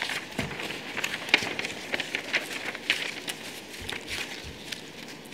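Sheets of paper rustling and being shuffled close to lectern microphones, a scatter of short rustles and soft clicks over a quiet room background.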